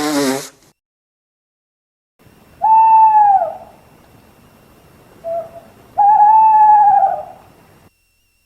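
Owl hooting: a long hoot, a short quiet note, then a longer wavering hoot.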